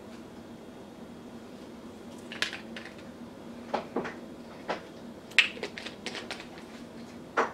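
Scattered light clicks and knocks of dishes and utensils being handled, the sharpest about five seconds in, over a steady low hum.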